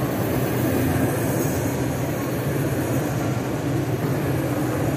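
A train running: a steady rumble with a low hum and no breaks.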